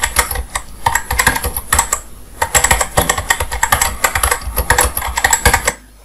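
Computer keyboard typing sound effect: rapid keystroke clicks, with a brief pause about two seconds in, stopping just before the end.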